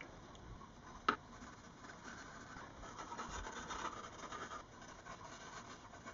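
Graphite pencil scratching on drawing paper as it hatches tone, loudest from about two and a half to four and a half seconds in. A single sharp click comes about a second in.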